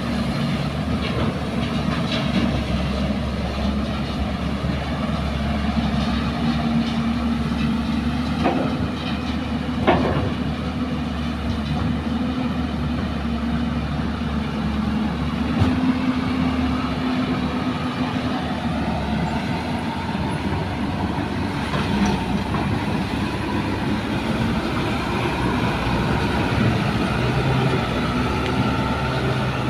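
Diesel engines of a JCB crawler excavator and a small dump truck running steadily while sand is loaded, with three sharp knocks in the first half. Near the end the engine note rises slowly as the loaded dump truck pulls away.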